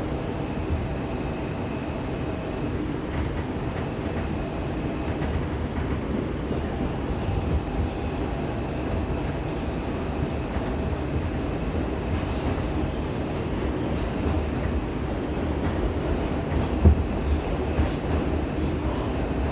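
R142 subway train running along the track between stations: a steady rumble of wheels and motors, with faint steady whine tones and a single sharp clack near the end.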